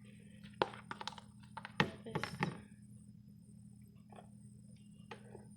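Kitchen utensils knocking and clattering, a spoon against a bowl as batter is scooped: two quick clusters of sharp knocks in the first half, then a single lighter knock near the end.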